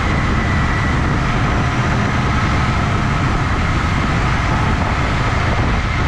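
Motorcycle riding at a steady pace, its engine and the road and wind noise making a loud, even rush with no breaks.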